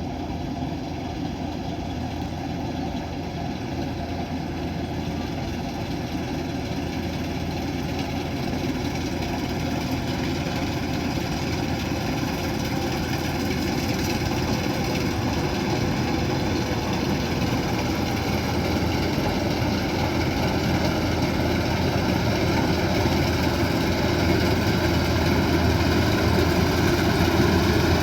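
Kubota DC108X combine harvester's diesel engine running steadily, growing gradually louder.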